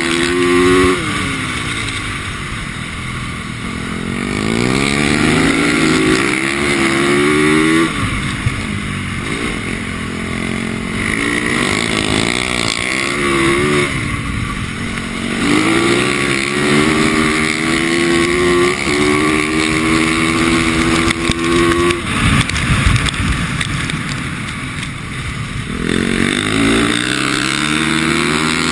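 A 450cc single-cylinder four-stroke dirt bike engine being ridden hard. It revs up with its pitch climbing through each acceleration, then drops as the throttle closes, over and over.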